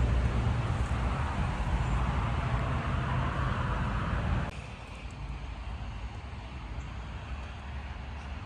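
Low, steady rumble of a running car with road or traffic noise. It drops off suddenly about four and a half seconds in to a quieter, steady background.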